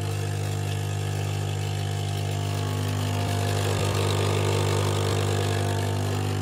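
Capsule coffee machine's pump running with a steady, loud hum and a buzz of overtones as it forces hot water through the capsule for a small espresso, coffee streaming into the mug.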